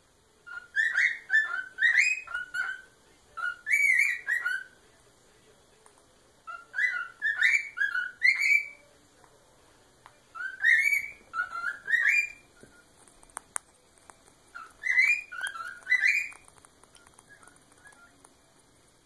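Cockatiel whistling its song: five short bouts of quick rising and falling whistled notes with brief pauses between them.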